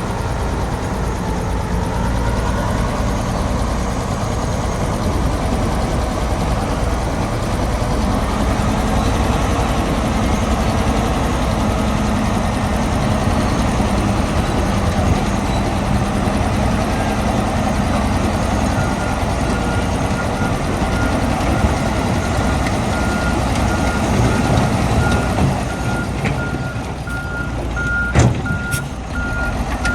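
Heavy diesel earth-moving machinery running steadily, with a reversing alarm beeping at an even pace from about two-thirds of the way through, growing louder. A single sharp knock near the end.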